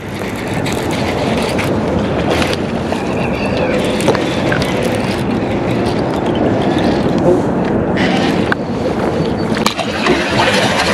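A steady rushing noise, with a few sharp clicks and knocks, while a hooked smallmouth bass is played on a baitcasting rod and reel. Near the end the fish splashes at the surface beside the boat.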